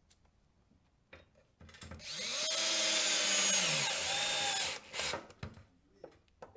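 Cordless drill/driver driving a lag screw through a stair lift track foot into a wooden stair tread. The motor whines for nearly three seconds, its pitch falling near the end, then runs again briefly.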